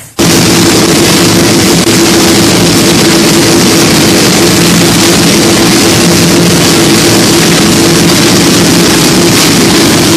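Carbureted V8 race engine of a NASCAR truck-series truck running loud at a steady, held speed. It comes in suddenly right at the start.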